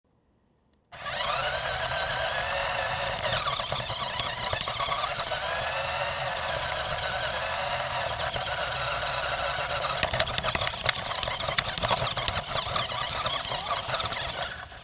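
Electric motor and gears of a radio-controlled toy truck whining as it drives, the pitch rising and falling with speed, over a rumble of tyres on the pavement. It starts suddenly about a second in, has a few sharp knocks near the two-thirds mark and stops just before the end.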